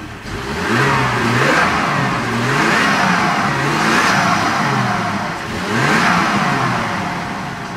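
Freshly rebuilt Toyota 7M-GTE turbocharged inline-six revved several times in a row, its pitch climbing and falling with each blip, with the turbo audible as a whooshing rush on the revs.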